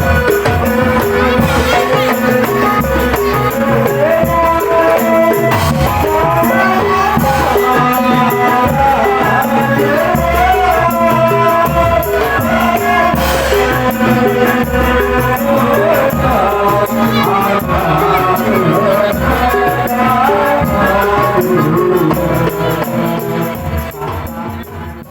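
Indonesian folk music with shaken rattle and tambourine-like percussion over a steady beat and a wavering melody, dropping away quickly right at the end.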